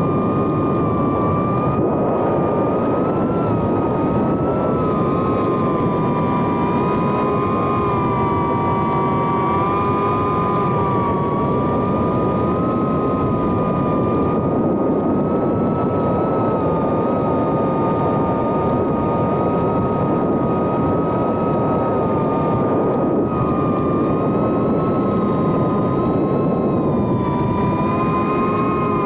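Brushless motors and propellers of a 2.5-inch FPV whoop drone (Happymodel 1404 3500kv) whining steadily in flight, the pitch wavering slightly up and down with throttle over a rushing propeller noise.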